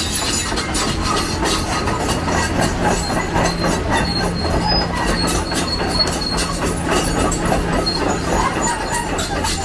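Excavator running steadily, its steel tracks clanking continuously, with a thin metallic squeal for a moment in the middle.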